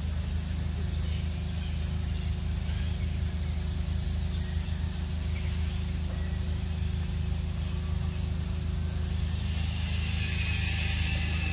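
Steady low hum with faint, steady high-pitched whines above it.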